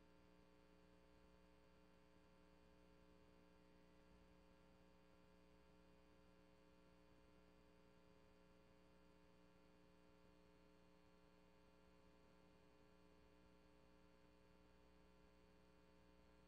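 Near silence with only a faint, steady electrical hum: the recording's sound failed, so none of the meeting was captured.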